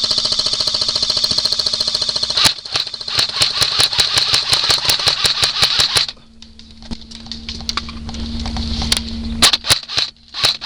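Airsoft guns firing on full auto. A dense rapid burst runs for the first couple of seconds, then a fast, even string of shots follows until about six seconds in. After a quieter stretch with a low steady hum, firing starts again near the end.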